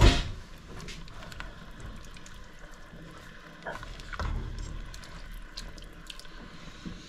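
A silicone spatula stirring thin carrot and lentil soup in a multi-cooker's cooking pot, the liquid moving against the pot's sides, with scattered faint clicks. A single loud knock comes at the very start.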